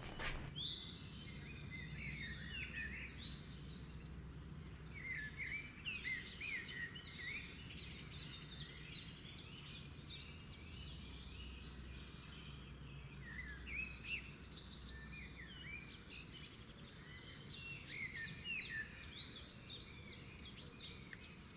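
Many small birds chirping, quick clusters of short calls that come and go, over a faint low background hum.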